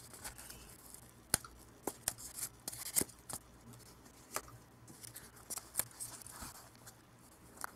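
Handmade cardboard coin box handled by gloved hands and folded open: a string of irregular sharp clicks and taps with soft cardboard scraping between them.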